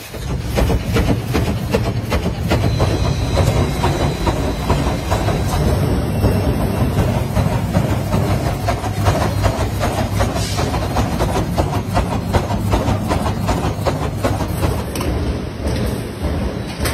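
Steel wire mesh welding and wire-feeding machinery running: a dense, continuous metallic clatter of rapid clicks and knocks over a steady low hum.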